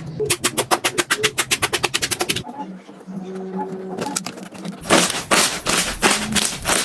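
Slime being squeezed and poked, giving a quick run of crisp clicks and crackles, then a quieter pause, then denser crackling again near the end.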